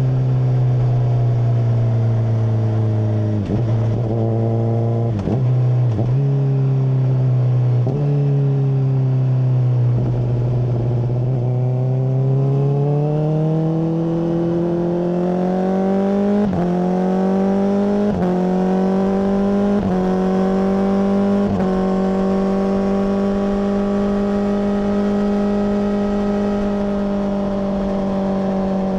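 Honda CBR600RR's inline-four engine running through a MIVV full exhaust, heard on board while riding. The engine note sinks slowly over the first ten seconds with a few brief dips, then climbs with several short dips before holding steady through the last several seconds.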